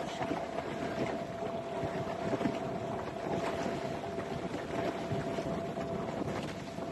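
A boat's engine running steadily with a constant hum under the rush of wind and water, and wind buffeting the microphone.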